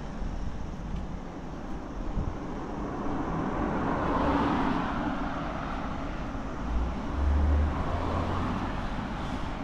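Street traffic: a passing vehicle swells and fades about four to five seconds in, then a second, lower rumble comes and goes a couple of seconds later.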